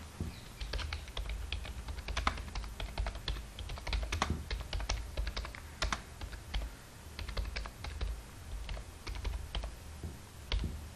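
Typing on a computer keyboard: a steady run of irregular key clicks.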